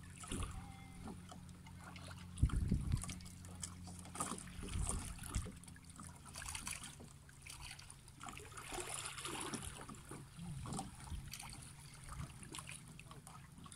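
Small waves lapping and trickling among shoreline rocks, with scattered small clicks and a few low rumbling bumps of wind on the microphone. A faint low steady hum fades out about halfway through.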